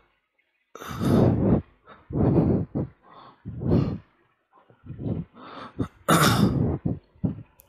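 A cloth rubbing across a whiteboard in repeated wiping strokes, about five strokes a second or so apart.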